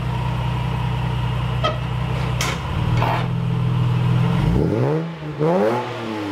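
Ford Falcon's naturally aspirated Barra 4.0-litre inline-six running steadily, with a few sharp clicks, then revved in rising and falling blips near the end.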